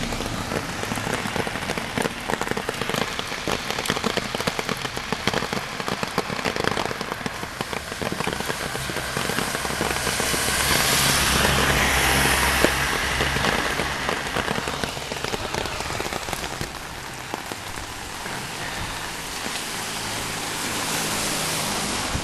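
Rain pattering steadily close to the microphone, a dense crackle of small drops. The noise swells for a few seconds about halfway through, then settles again.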